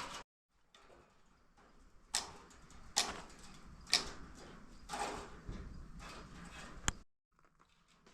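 Sharp metallic clicks about once a second, five in all, from wire cutters snipping galvanized chicken wire.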